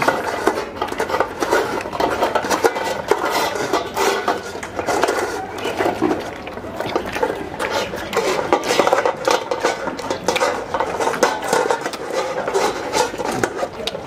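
African lion cub eating meat and milk from a stainless steel bowl: a steady run of wet chewing and lapping, with the metal bowl clinking and scraping on the brick paving as it is pushed about.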